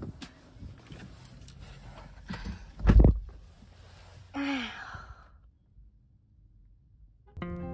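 A Mazda's driver door is shut with a heavy thump about three seconds in, after a few light clicks of handling. A second later a person gives a tired sigh that falls in pitch, and music comes in near the end.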